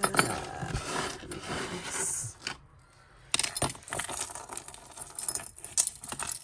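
Metal jewellery clinking and jingling as it is handled on a tabletop: a silver-coloured chain charm bracelet is picked up and shifted about. The handling goes quiet for a moment near the middle, then starts again as a run of small clicks.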